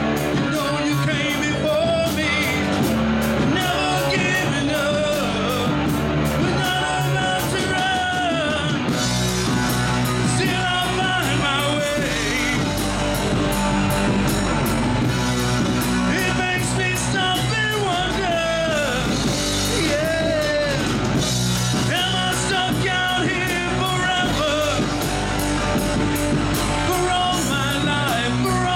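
Live rock band playing: a male lead singer sings into a microphone over electric guitar, electric bass and a drum kit keeping a steady beat. The band's sound fills out about nine seconds in.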